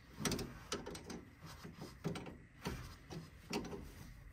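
Scattered metallic clicks and clunks of hand tools and battery hardware, about half a dozen irregular knocks, as a truck battery is being fitted and fastened.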